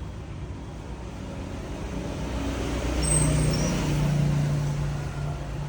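Road traffic, with a vehicle engine's low hum swelling about three seconds in and easing off near the end.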